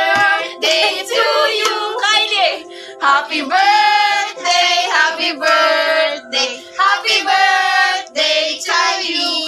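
A small group of women and children singing together, with hand clapping, over background music.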